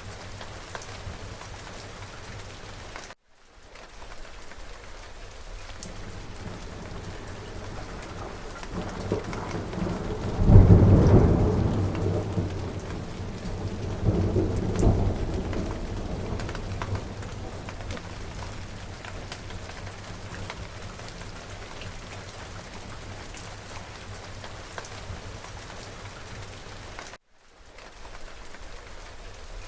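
Steady heavy rain with a rolling thunderclap. The low rumble builds about a third of the way in, peaks in a sharp loud crack, swells again a few seconds later and slowly dies away. The rain cuts out to silence for a moment twice.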